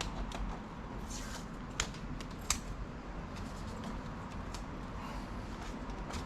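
Small sharp clicks and light scraping of a plastic pry tool working at the snap-fit clips of a laptop's plastic case, with two louder clicks close together about two seconds in.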